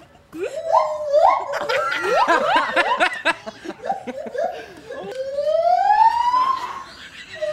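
Gibbon calling: a quick series of short whooping notes that glide upward and come faster and faster, then a long wailing note that climbs steadily in pitch near the end.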